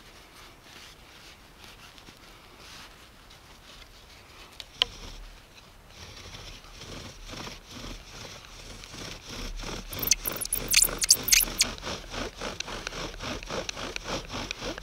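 Bow drill in use: a spruce spindle spinning and rubbing in a spruce fireboard as the bow is sawed back and forth. It makes a rhythmic scraping, a few strokes a second, that starts about six seconds in and grows louder, with high squeaks around the tenth second. A single sharp click comes shortly before the strokes start.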